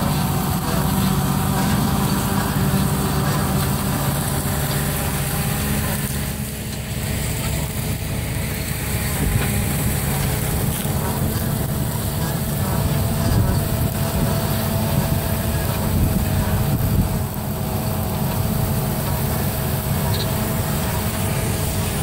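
Large John Deere tractor's diesel engine running steadily under load while it pulls a 26-foot Great Plains short disk through wet clay ground. It is a continuous low rumble with a faint steady whine, mixed with the noise of the vehicle filming alongside.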